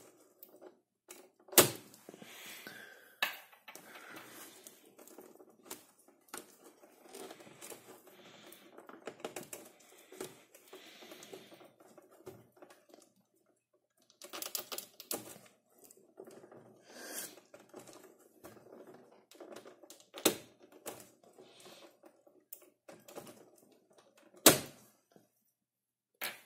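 Control knobs being worked and pulled off the front panel of a Philips N4308 reel-to-reel tape recorder: irregular clicking, rattling and scraping of the knobs on their shafts, with four loud sharp clicks spread through.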